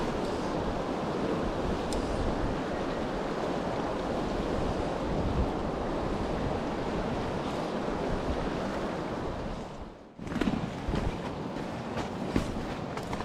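Fast, shallow river water rushing over stones in a riffle, a steady even rush. About ten seconds in it breaks off and gives way to a different bed of noise with scattered clicks and knocks.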